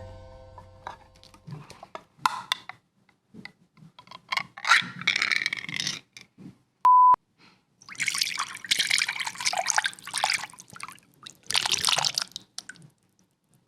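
Wet liquid splattering and dripping in several irregular bursts with scattered clicks: a Foley sound layered to fake diarrhea. About halfway through comes a short, pure, steady beep.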